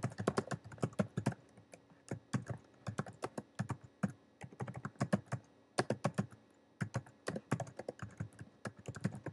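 Typing on a computer keyboard: quick runs of keystrokes with brief pauses between words.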